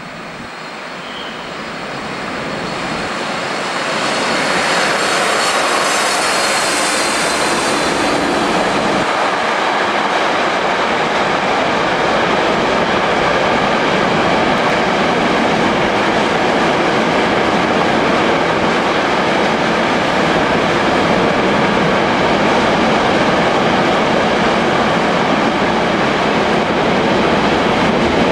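A container freight train hauled by a class 363.5 electric locomotive passes through without stopping. The noise swells over the first few seconds as the locomotive comes by, then holds at a steady, loud rolling of the wagons' wheels on the rails.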